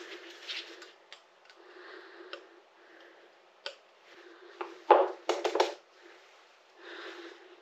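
Light clicks and knocks of tools and small parts being handled, with a cluster of louder knocks about five seconds in, between stretches of soft rustling.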